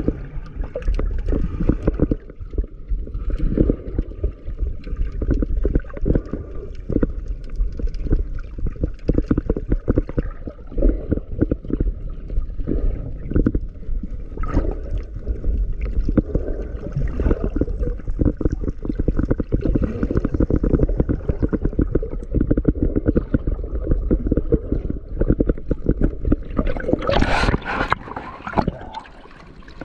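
Muffled sea water heard by a camera in or at the water: a low rumble with dense bubbling, sloshing and small knocks. About two seconds before the end comes a short, brighter splash.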